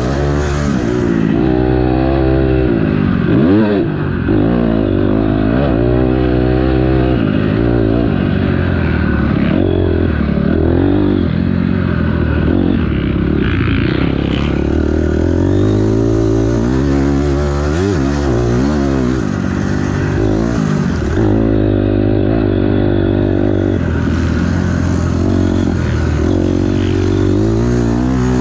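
Honda CRF250R four-stroke single-cylinder dirt bike engine heard close up from on the bike while being ridden hard, its pitch climbing and dropping again and again as the throttle is opened and shut and the gears change.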